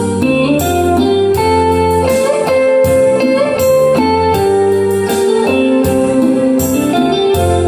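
Instrumental music with a guitar melody over bass and keyboards, played as a listening test through an STP technology AB3600 class AB power amplifier and its speakers.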